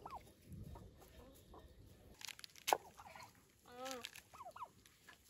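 Domestic turkeys clucking softly: a few short, scattered calls, with a single sharp click about halfway through.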